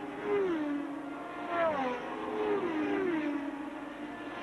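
Racing car engines passing by one after another, the engine note dropping in pitch as each car goes past, about four passes.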